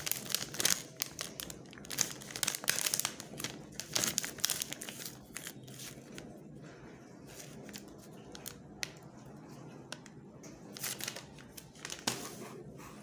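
Plastic and foil wrapper of a Feastables chocolate bar crinkling and tearing as it is handled and opened. The crackling is busy for the first few seconds, thins out, then comes again in a short burst near the end.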